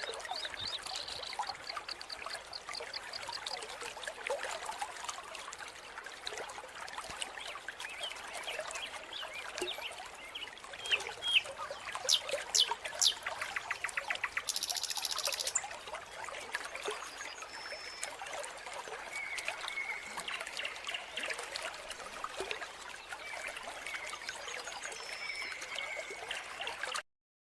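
Mountain stream water trickling and splashing steadily, with short high chirps and trills of small animals scattered over it. The sound cuts off abruptly just before the end.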